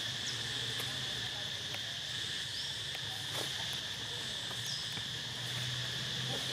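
Insects droning steadily at one high, even pitch, over a low steady hum, with a few faint short chirps.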